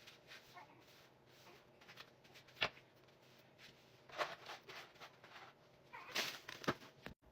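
A few short, sharp knocks and clatters of objects being handled and set down, the loudest about two and a half seconds in and several more close together near the end.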